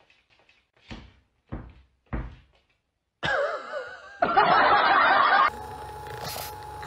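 Three soft thumps about half a second apart, then a loud wavering, voice-like sound that cuts off suddenly. After it, a handheld percussion massage gun buzzes steadily with one fixed tone.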